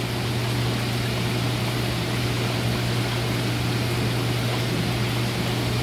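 Aquarium circulation pump running: a steady low hum under an even hiss of moving water.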